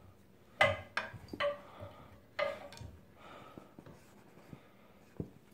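Cardboard soda-can box knocking and scraping on the carpet as a cat moves around with its head inside it. A few sharp knocks come in the first three seconds, then faint rustles and one more knock near the end.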